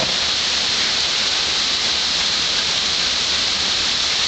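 Heavy rain pouring down in a steady hiss during a rainstorm.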